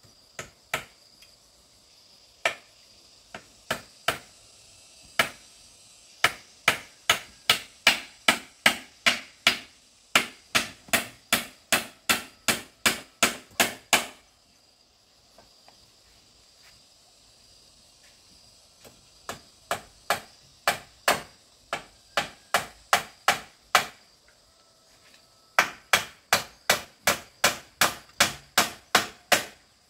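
A hand tool striking wood in sharp, evenly paced blows, about two to three a second, a few scattered at first and then in long runs with pauses between. Insects chirp steadily in the background.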